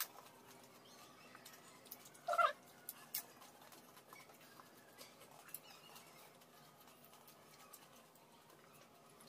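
Two people eating pani puri: faint crunching and small clicks of puris, plates and steel tumblers, with one short squeaky slurp-like sound, the loudest thing here, about two and a half seconds in.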